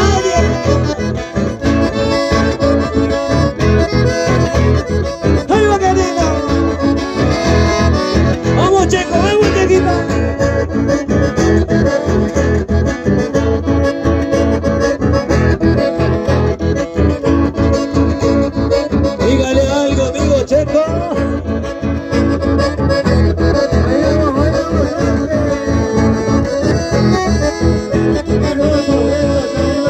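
Live dance-band music playing loud, with held melody notes over a steady beat.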